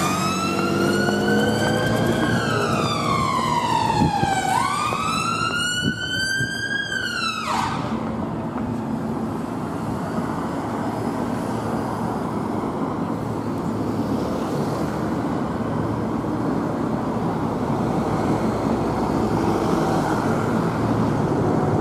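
Ambulance siren on a slow wail, its pitch rising and falling twice before it cuts off suddenly about seven and a half seconds in. Steady city traffic noise follows.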